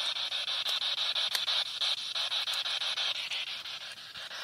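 Spirit box (a radio scanner sweeping rapidly through stations) giving a steady hiss of static with a fine, even flutter and faint clicks, easing off a little after about three seconds.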